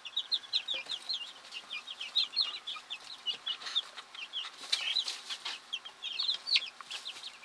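A brood of young chicks peeping: a steady stream of short, high-pitched, falling peeps, several a second.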